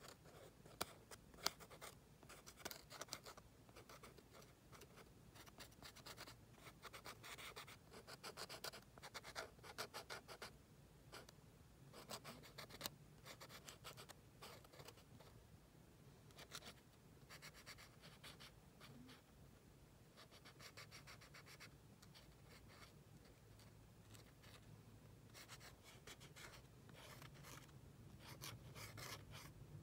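Faint scratching of a Sakura fine-tip drawing pen on a paper journal page, in short clusters of quick strokes with brief pauses between them.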